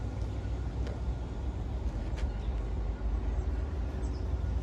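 Outdoor background noise at a railway platform: a steady low rumble with a few faint high chirps, and no train passing.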